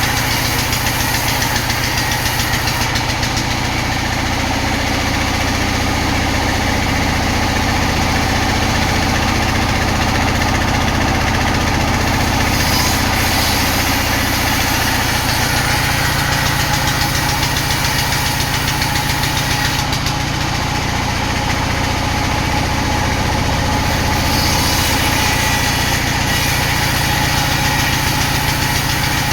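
Sawmill saw and its drive running steadily. The low hum shifts slightly about halfway through.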